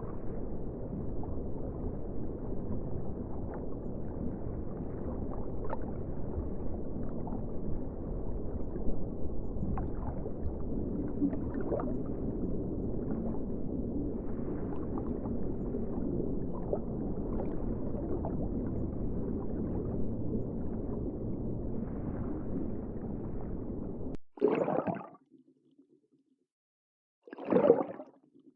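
Underwater ambience: a steady, muffled low rush of water with a few faint clicks, which cuts off suddenly about 24 seconds in. Two short bursts of sound follow a few seconds apart near the end.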